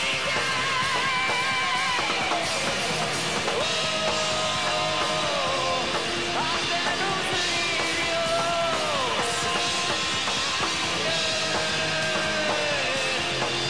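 A heavy metal band playing live, with electric guitars and drums. A male singer holds long, wavering high notes, several of which slide downward as they end.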